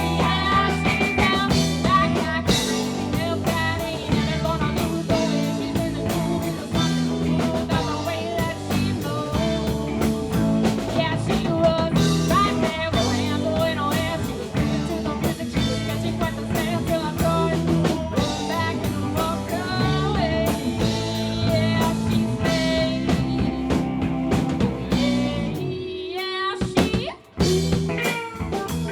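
A band playing a blues-rock song with electric guitar, bass and drum kit. About 26 seconds in, the low end drops away briefly and there is a short break before the full band comes back in.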